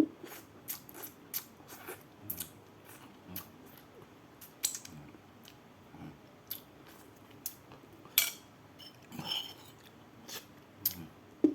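Close-miked eating of rice with sambal: scattered sharp clicks and taps from chewing and the mouth, with occasional knocks of a utensil on the plate, at irregular intervals. A louder click comes about eight seconds in.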